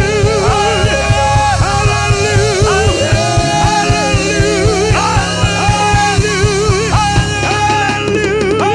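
Gospel worship music: a singer holding wavering, vibrato notes over a band with a steady drum beat.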